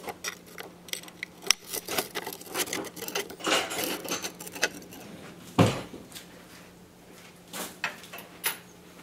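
Hands working small hard accessory parts loose: a spacer being taken out of the fisheye lens set. Irregular light clicks and clatter throughout, with one louder knock a little past halfway.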